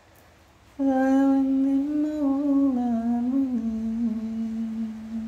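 Background song: after a short pause, a single voice hums a long wordless phrase that steps slowly down in pitch. It begins about a second in.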